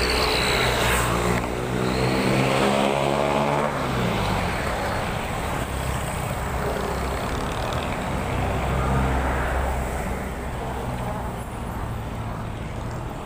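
Street traffic passing close by. A heavy armoured vehicle's engine goes past in the first few seconds, its pitch falling as it passes. A motorcycle then rides by a few seconds later.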